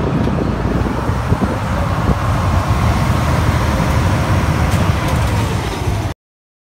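Ferry's engine running steadily under the open-air noise of a crowded deck. The sound cuts off abruptly about six seconds in.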